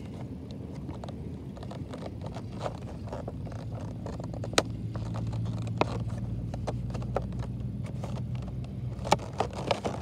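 A vehicle going by, a low rumble that swells in the middle and eases off near the end. Scattered clicks and scrapes of a cardboard toy box being handled sound over it.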